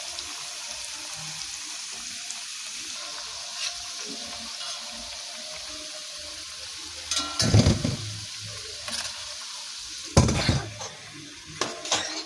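Potatoes roasting with a steady sizzle, broken by two louder bursts of clattering about seven and ten seconds in.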